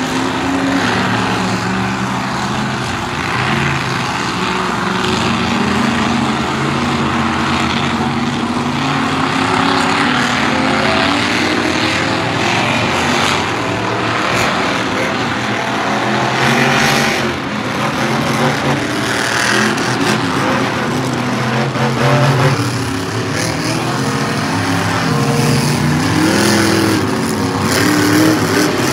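Monster truck engines running and revving as the trucks drive across the sand, the pitch rising and falling with the throttle.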